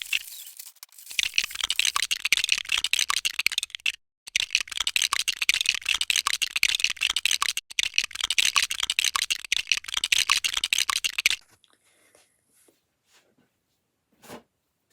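Lego bricks clattering and clicking quickly and densely as they are sorted and handled, with a plastic rustle, in several stretches that cut off abruptly. About eleven seconds in it drops to a few light clicks.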